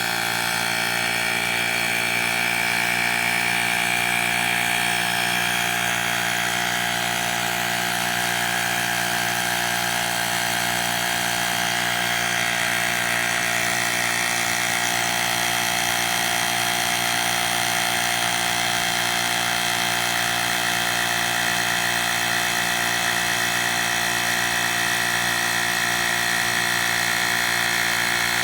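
Woowind AP2-P cordless electric air pump running steadily, its small compressor motor giving an even mechanical hum with a high whine.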